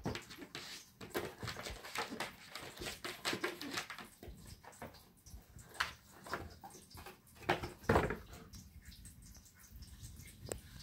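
Cardboard Lego box being pawed, pushed and tipped up by a cat on a rug: irregular scrapes, taps and knocks of the box. The loudest knocks come at the very start and about three quarters through, then it quietens near the end.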